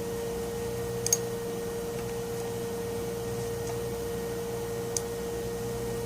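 Computer mouse clicks, a quick double click about a second in and a single click near the end, over a steady electrical hum with a constant tone.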